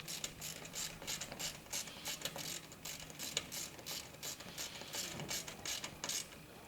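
Socket ratchet wrench clicking as a bolt on the solar collector's mounting bracket is snugged up, a quick, even run of clicks, several a second.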